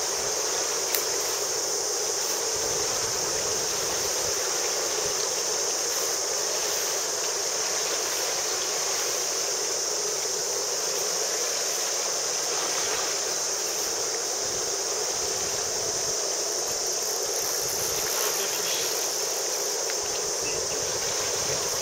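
Steady rush of a shallow river flowing over a stony riffle, with a constant high-pitched hiss above it.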